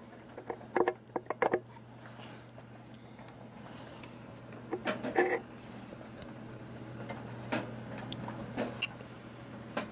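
Light metallic clicks and clinks as a billet turbo compressor wheel is pushed and turned by hand in its housing, a quick run of them at first, another about five seconds in and a few single ones later, over a steady low hum.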